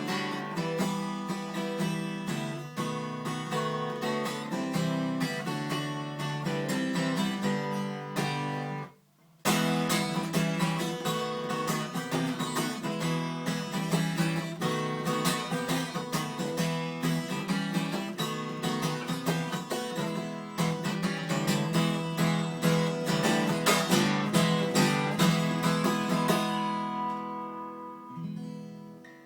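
Yamaha FG340 Mark II steel-string acoustic guitar strummed in chords, with a brief stop about nine seconds in; near the end a last chord rings out and fades away.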